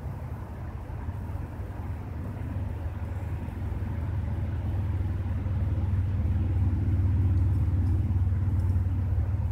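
Low rumble that swells slowly over several seconds, loudest near the end, then begins to ease off.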